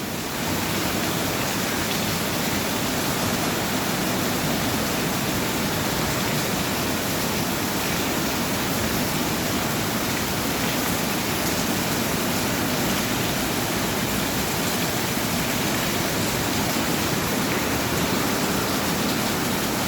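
Heavy rain falling as a steady, even downpour, with no break or thunderclap.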